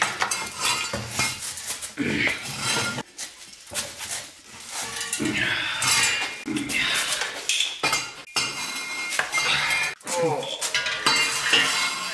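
Metal exhaust parts clinking and clanking as a downpipe mounting bracket is worked off and handled on a concrete floor, with irregular knocks and a few short squeaky scrapes.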